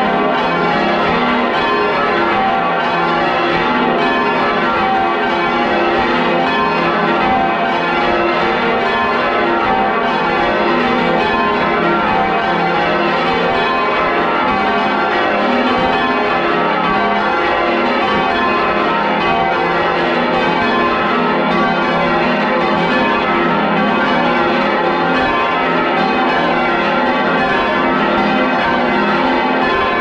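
Ring of ten church bells being rung down, heard loud and close inside the bell chamber: the bells strike one after another in continuous overlapping rounds as their swing is lowered from full circle to rest.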